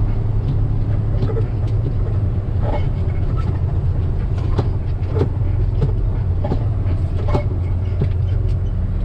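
Heavy truck's diesel engine running steadily, with scattered light clicks and rattles over the drone.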